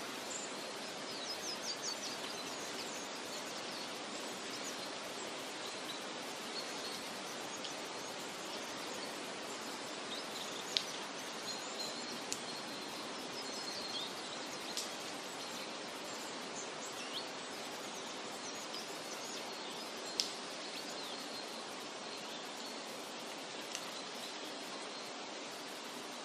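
Forest ambience: a steady rushing background hiss with scattered short, high bird chirps and calls throughout, and a few sharp ticks.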